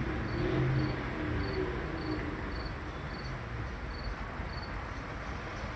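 Crickets chirping steadily at about two chirps a second, with a second, higher-pitched chirping joining about three seconds in. A faint low hum sounds under them in the first second or so.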